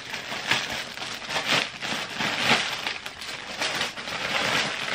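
Plastic packaging crinkling and rustling in irregular bursts as a plastic mailer bag is opened and clothes wrapped in clear plastic bags are pulled out and handled.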